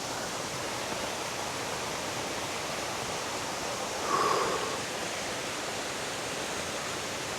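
Steady rushing of Thi Lo Su Waterfall's falling water, an even roar with no letup. About four seconds in, a brief, louder sound rises over it.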